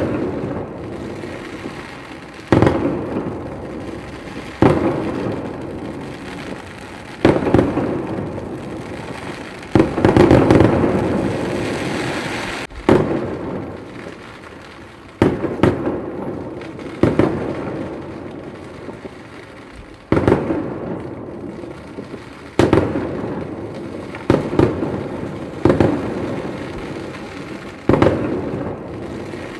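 Aerial firework shells bursting overhead: a sharp bang about every two seconds, each followed by a rumbling echo that fades away, with a denser run of bursts about ten seconds in.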